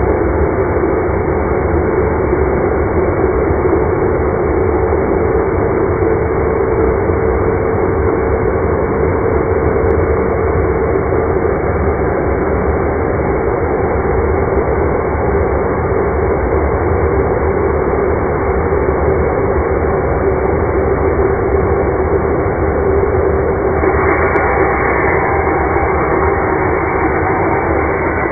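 Makita MLS100 mitre saw's electric motor running at speed: a loud, steady rush with a held tone in it. About 24 seconds in the sound turns brighter and harsher.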